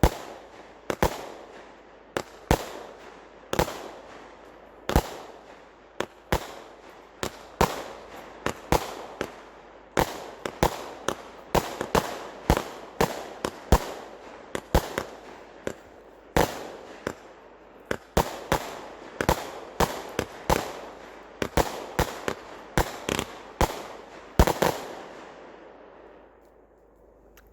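Fireworks going off in a fast string of sharp bangs, about one to two a second, each trailing off briefly. The barrage ends with a loud final bang near the end and then dies away.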